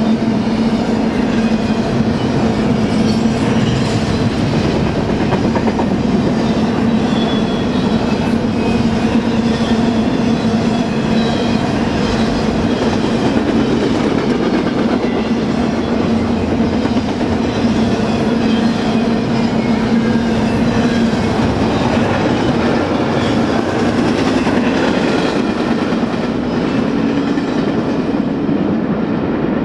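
Double-stack intermodal freight train's well cars rolling past close by: a steady rumble and clatter of steel wheels on the rails, with a steady droning tone underneath. It eases off a little near the end.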